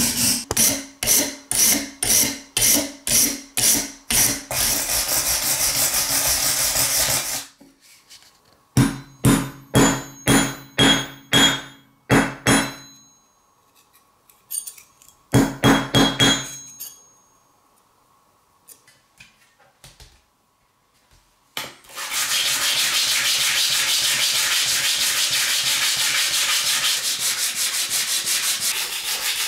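Steel wire brush scrubbing rust off a small knife blade in quick back-and-forth strokes, a little over two a second, then steadily. After pauses with more short strokes, continuous hand sanding of the carbon-steel Mora blade on sandpaper starts about two-thirds of the way in.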